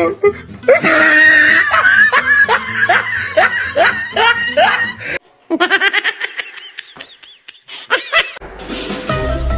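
Laughter sound effects: a long bout of loud, repeated laughing, then after a short break a second, thinner laugh. Near the end a short rush of noise leads into background music.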